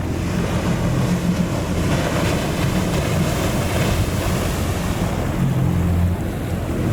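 Wind and sea noise over the low, steady hum of an idling boat engine. The hum fades and returns a couple of times.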